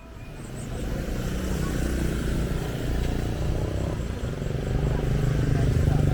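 A motor vehicle's engine running, a low rumble that builds in level and grows louder about five seconds in.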